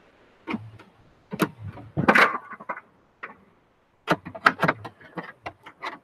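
Metal rod clicking, knocking and scraping against the latch linkage inside a car door as it is worked to pull up a sticking door latch mechanism. A few separate clicks, a brief scrape about two seconds in, then a quick run of light clicks and taps near the end.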